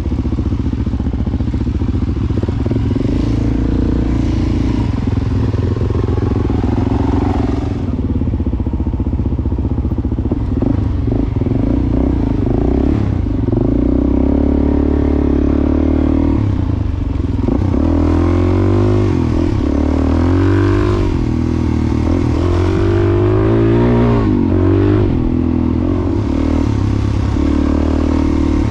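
Suzuki DR-Z400S dual-sport motorcycle's single-cylinder four-stroke engine running under way, its pitch rising and falling repeatedly as the rider rolls on and off the throttle.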